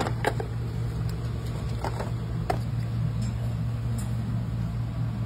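Steady low hum of a running machine, with a few light clicks and knocks near the start and about two seconds in.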